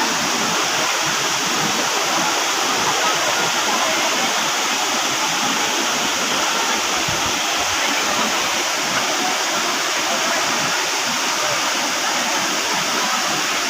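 Waterfall with water pouring steadily into a pool, a continuous even rush.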